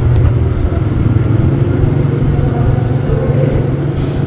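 A steady low mechanical drone, an engine or motor running without change.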